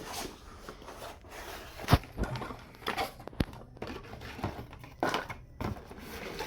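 Unboxing handling noise: packaging being rustled and torn, with scattered knocks and clicks, the sharpest knock about two seconds in.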